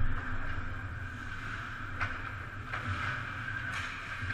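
Ice hockey play in an arena heard from beside the goal: a steady low hum and hiss, with a few sharp knocks about two seconds in, again shortly after, and near the end.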